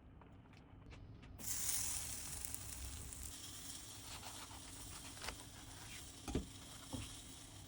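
Hot oil sizzling in a frying pan, starting suddenly about a second and a half in, as when breaded chicken schnitzel goes into the pan, then easing off a little. Two sharp knocks near the end.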